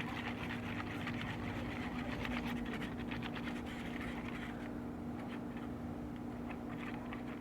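A stick stirring thickening borax slime in a container: continuous rapid sticky scraping and squelching as the mixture gels and clings, over a steady low hum.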